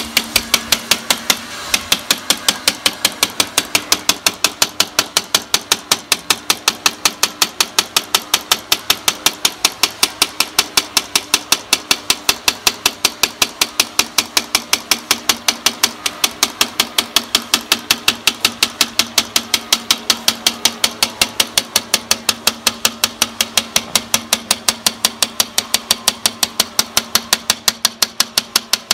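Rapid, even tapping of a small metal tool's ball end on a glass pane, about three to four taps a second, over a faint steady hum. The taps run the cut along a scored circle so a round hole can be broken out for an exhaust fan.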